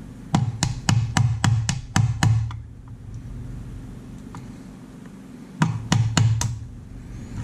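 Hammer tapping out the pins of a Cold Steel AD10 folding knife: a quick run of about eight sharp taps, about four a second, then a pause of about three seconds and four or five more taps.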